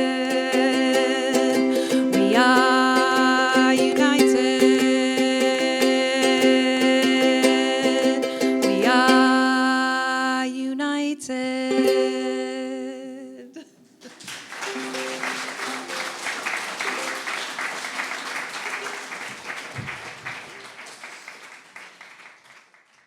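Looped layers of held vocal harmony with a live sung melody over them, built on a loop pedal; the music stops suddenly about thirteen seconds in. Audience applause follows and fades out.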